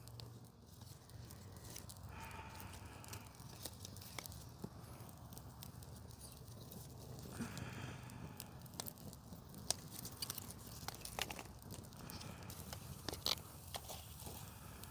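Small campfire of kindling and sticks crackling faintly, with scattered sharp snaps, a few louder ones later on.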